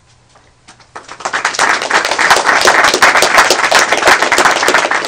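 Audience applauding: many hands clapping, starting about a second in and quickly building to full strength.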